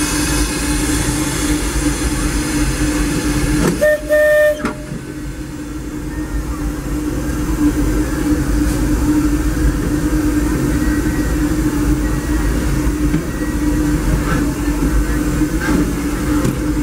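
Disneyland Railroad steam locomotive standing at the station, with a steady hum and hiss. A short whistle toot sounds about four seconds in.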